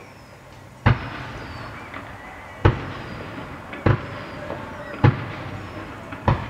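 Fireworks shells bursting: five sharp bangs a second or two apart, each followed by a rumbling tail.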